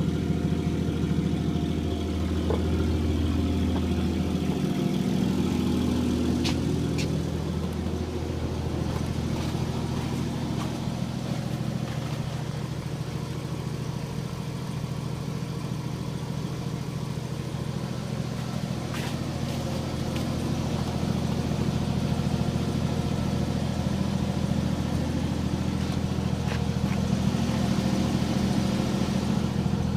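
1953 Chevrolet 210's 235 cubic-inch straight-six engine running, its speed shifting up and down over the first several seconds and then settling into a steady run.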